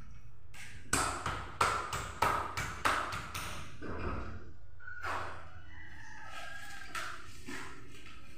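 Plastic electrical moulding being pressed and snapped into place by hand: a run of sharp plastic clicks in the first three seconds, the loudest four about half a second apart, followed by fainter scraping and handling.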